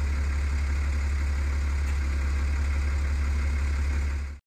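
An engine idling steadily with a deep, low rumble that cuts off abruptly near the end.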